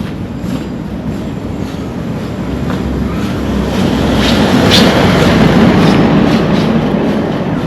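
A road vehicle passes close by, its rumble swelling to its loudest about five seconds in and then easing off.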